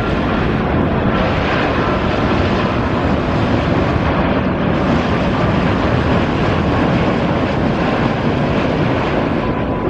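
Boeing 787-9 airliner's jet engines heard from the ground as it passes low on final approach with gear down, a steady, loud rushing noise.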